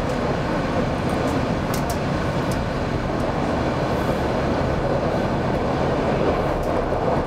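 Freight train of open-top gondola wagons rolling past close by: a steady noise of steel wheels running on the rails, with a few faint high clicks.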